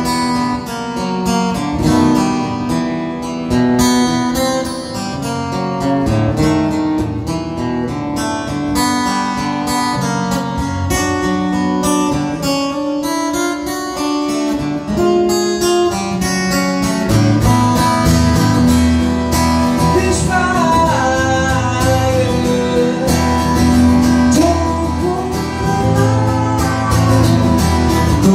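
Guitar music, plucked and strummed, as an instrumental intro with no singing. A deeper bass part comes in about halfway through and fills out the sound.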